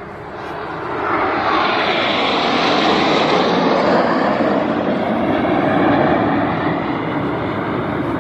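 A formation of jet aircraft flying past overhead: a loud rushing engine noise that builds about a second in, holds, and eases slightly near the end.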